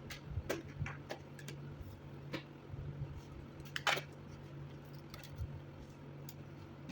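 Scattered small clicks and taps of hands and tools working on a laptop's parts during a hard drive swap, the sharpest about four seconds in, over a steady low hum.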